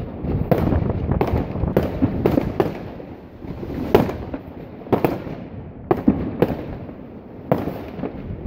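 Fireworks bursting overhead: an irregular run of bangs and crackles, several close together, the sharpest about four and five seconds in, over a steady low rumble.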